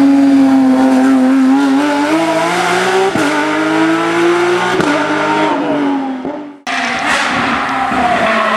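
Hill-climb race car engine at high revs, accelerating with two quick upshifts about three and five seconds in, then falling in pitch and fading away. After a sudden cut, another race car's engine is heard.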